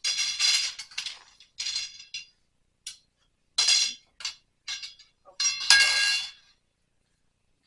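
Parts of a clothes drying rack clinking and clattering together as they are handled and fitted during assembly: a run of sharp, ringing knocks, the loudest about six seconds in.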